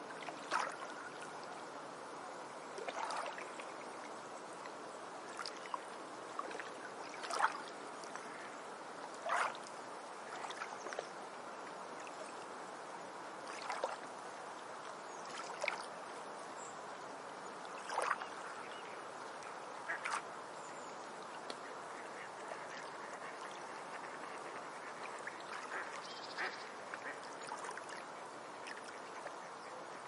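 Beach ambience: a steady wash of water with short bird calls every two to four seconds, fewer and fainter in the last third.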